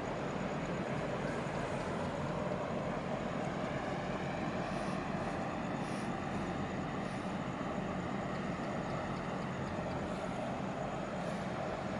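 Steady low diesel rumble of a harbour tug working against the hull of a large container ship during berthing, heard across the water.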